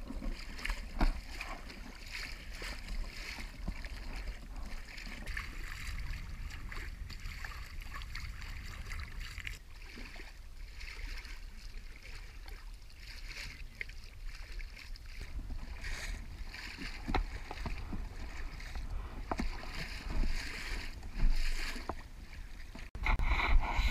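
Water rushing and splashing along the hull of a small sailboat under sail, with wind on the microphone as a low rumble. The wind rumble gets louder near the end.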